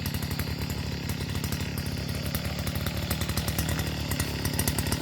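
Petrol brush cutter's small two-stroke engine running steadily, cutting grass.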